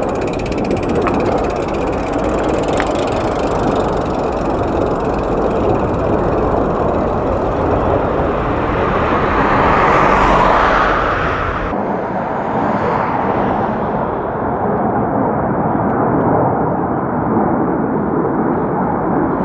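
Jet aircraft engine noise: a loud, steady rush that swells to its loudest about halfway through and then eases back.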